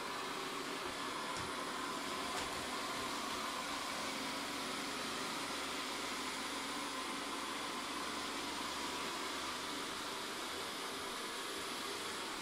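Vorwerk Kobold VR200 robot vacuum cleaner running as it drives across a hard floor: a steady whooshing suction noise with a faint whine.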